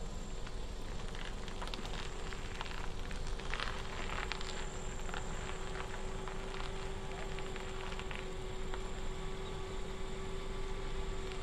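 Kia Picanto hatchback creeping forward at walking pace: a steady low engine hum, with light crackling from the tyres rolling over gritty tarmac, mostly in the first half.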